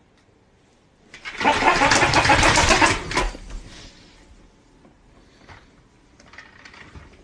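A toy duck's motor and works rattling loudly in a dense buzz, starting about a second in and lasting about two seconds before fading, followed by faint scattered clicks.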